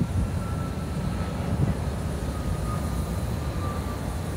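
Steady low rumble of city vehicle noise, with a faint whine slowly falling in pitch.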